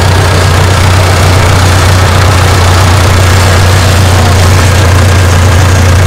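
Bulldozer's diesel engine running steadily and loud, with a strong low hum.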